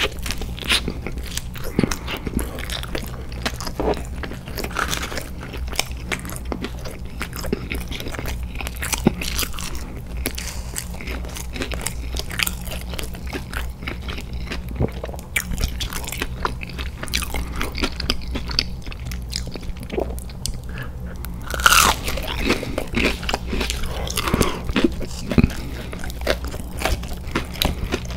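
Close-miked mouth sounds of a person biting and chewing a cheeseburger and chicken nuggets: a dense run of small clicks, with one louder sound a little over two-thirds of the way through.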